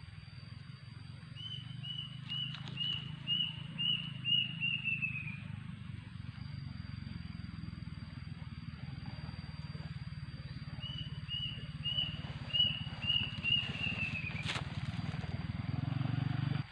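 A bird calling twice: each call a run of about eight short high whistled notes that speed up and fall in pitch at the end, about five seconds apart, over a steady low hum.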